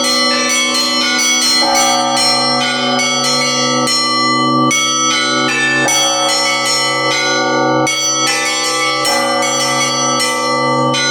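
Russian Orthodox festive bell ringing (prazdnichny zvon): small treble bells struck in quick, busy patterns over a deeper bell struck every few seconds, all ringing on into one another in an improvised peal.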